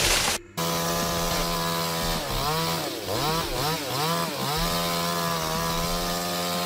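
Two-stroke chainsaw running at high revs with a steady pitch. Several times in the middle its pitch dips and recovers as the load changes, then it holds steady again.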